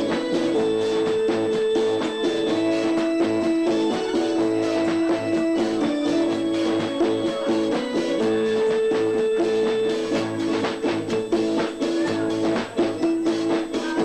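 Live South African Indian chutney band playing an instrumental passage: long held melody notes over guitar and a steady drum-kit beat, with no singing.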